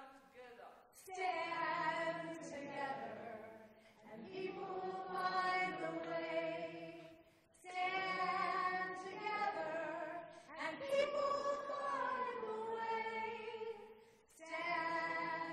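An audience singing together in unison, a slow, simple folk melody sung in phrases of about three seconds with short breaks for breath between them.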